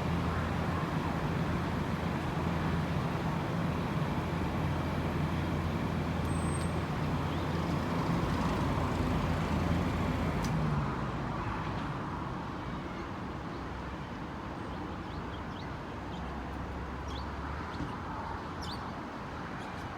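Fire engine's diesel engine running steadily, with a short high beep about six seconds in. About eleven seconds in the engine sound gets quieter, and faint short chirps come near the end.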